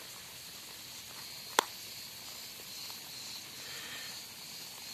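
A wire hook being pushed into a plastic plug tray to pin a strawberry runner: one sharp click about a second and a half in, over a steady hiss with a faint high buzz.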